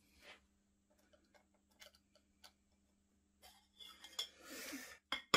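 A knife blade cutting through rolled pastry around a china plate, with light scattered taps and scrapes of the blade against the plate's rim and the board, a longer scrape about four and a half seconds in, and a sharp clink near the end.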